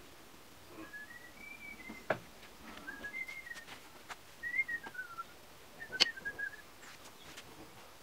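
Four short whistled phrases, each a little melody that rises and falls. Sharp knocks cut in about two seconds in, and a louder one comes about six seconds in.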